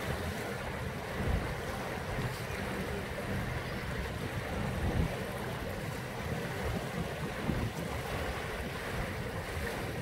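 Small choppy waves washing onto a sandy shore, with wind buffeting the microphone in low gusts, most strongly about a second in, around five seconds in and again past seven seconds.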